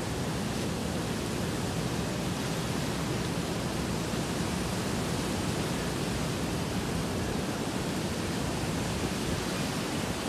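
Heavy rain pouring down in strong gusting wind, a steady even hiss with no break.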